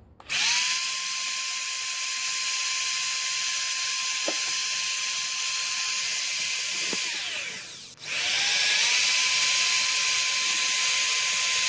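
Powerful electric drill running at high speed, driving the pump that forces liquid termiticide through a hose into a hole drilled in concrete stairs. It spins up, runs steadily, winds down and stops about eight seconds in, then starts straight up again.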